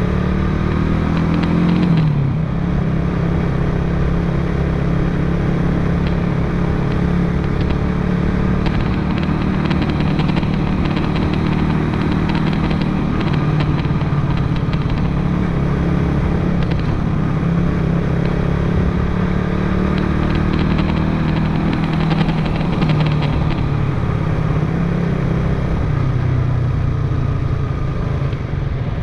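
Motorcycle engine running steadily while riding, with wind and road rush. The engine note drops about two seconds in.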